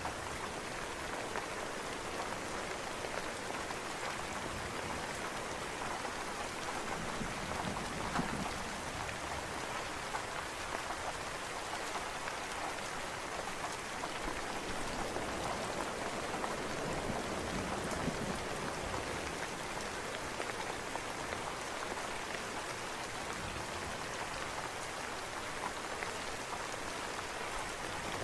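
Steady rain falling and pattering on surfaces, with a faint low rumble swelling once or twice underneath.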